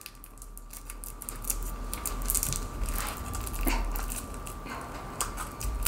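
Plastic shrink wrap around a fossil dig brick crinkling and crackling in irregular small clicks as fingers pick at its edge to peel it off.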